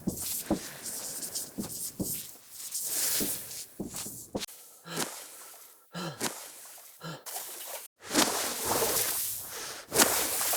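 Writing sounds, short repeated strokes and scratches on paper. About four seconds in they give way to swimming backstroke, with scattered splashes in water. Near eight seconds that switches to breaststroke, a denser, louder sloshing of water.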